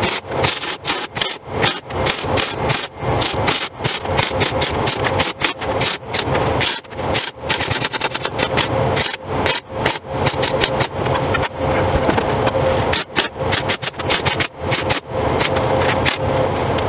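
MIG welding arc crackling and sputtering on preheated steel, in runs broken by many brief pauses, with a steady hum beneath.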